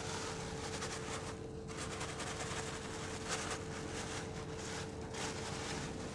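Soft, irregular rustling and hissing as dry wall putty powder is tipped into a container, over a steady low hum.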